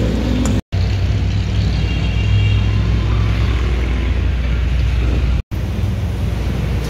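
Steady low rumble of street traffic, broken by two brief cuts to silence, about half a second in and near the end.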